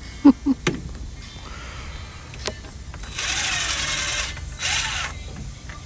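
Power drill boring into a broken motor mount bolt, run in two bursts: a longer one of about a second, then a shorter one, its whine dipping and rising under load. It follows a few sharp knocks in the first second.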